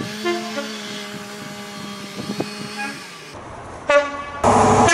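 Train horns across quick edits: a steady horn note held for about three seconds, then a short sharp horn toot about four seconds in, followed by a cut to the louder rumble of a train.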